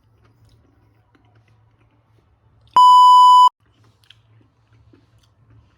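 A censor bleep: one steady, high electronic beep about three quarters of a second long, starting about three seconds in, with the room sound cut out beneath it.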